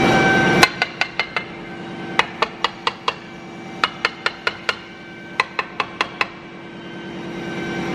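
Small steel hammer tapping on the aluminium crankcase of a Honda CB300 engine (bored to 504 cc), about nineteen light, ringing taps in four quick runs of four or five, about five taps a second. The taps drive the crankcase halves together as the case is closed.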